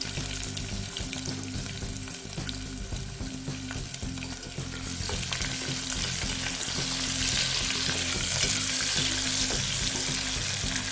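Sliced onions sizzling in hot oil in an aluminium pressure cooker, stirred with a plastic spatula from about five seconds in; the sizzle grows louder once the stirring starts.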